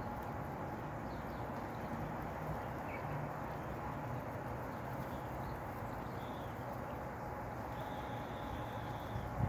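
A few faint, short bird chirps over a steady background hiss, with a longer high call near the end.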